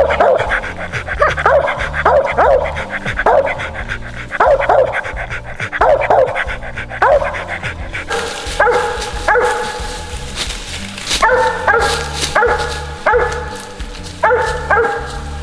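Squirrel dogs barking treed, a steady chop about once a second: the sign that the dogs have a squirrel up the tree. About halfway through the barks turn clearer, with a steady pitch.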